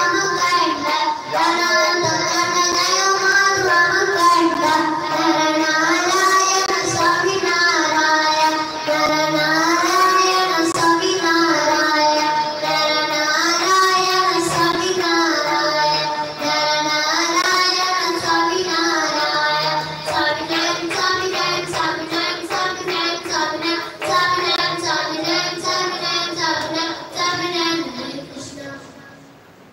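A boy singing a devotional aarti song into a microphone, with hands clapping in time. The singing fades out near the end.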